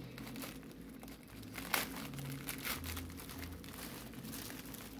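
Plastic shipping envelope crinkling and rustling as it is torn open by hand, with bubble wrap and foam packing inside; a few sharper crackles stand out about two and three seconds in.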